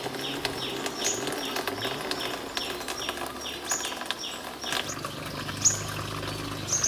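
A bird calling over and over in short falling chirps, about two or three a second.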